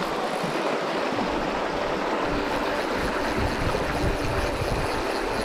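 Rushing water of a shallow river riffle, a steady hiss, with a low uneven rumble joining about a second in.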